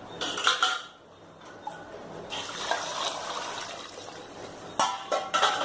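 Coconut milk being poured into a cooker of fried rice and chicken: a steady pouring splash for a couple of seconds in the middle, with short clinks around it.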